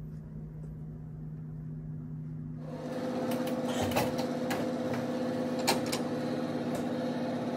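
Snack vending machine humming. About three seconds in, a louder steady whir starts, with several sharp clicks and knocks as its front door is pushed shut and latched.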